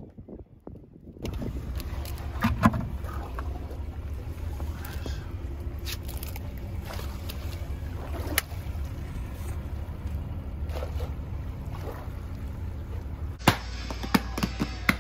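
Steady low rumble with scattered knocks and clicks of things being handled. Near the end come several sharp plastic clicks from the latches of a white plastic cooler box.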